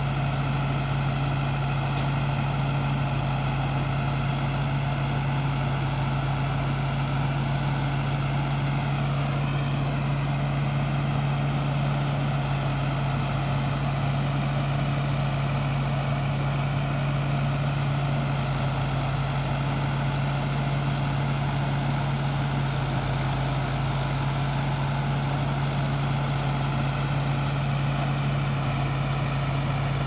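Tractor-driven rice thresher running steadily while it threshes, a constant mechanical drone with a strong low hum. The tractor engine and the thresher's drum and blower run together as it blows out rice straw.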